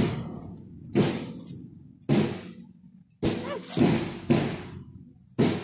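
A big drum struck in a slow, steady beat, six heavy booms about a second apart with a quicker pair in the middle, each ringing out before the next.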